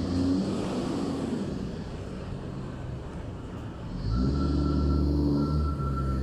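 Container reach stacker's diesel engine running, its note rising and getting louder about four seconds in, with a thin high whine coming and going from then on.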